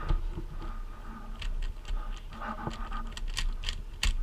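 YJ Guanlong plastic speed cube being turned rapidly: a quick, irregular run of clicks and clacks from its layers snapping round, thickest from about a second and a half in.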